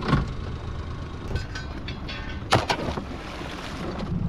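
Anchor chain and gear knocking and clinking in a small boat: a sharp knock right at the start, a few light clicks, then another sharp knock about two and a half seconds in. A steady low rumble of wind on the microphone runs underneath.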